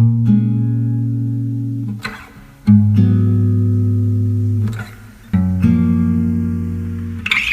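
Music: three sustained chords, each struck and left to ring and fade, about two and a half seconds apart.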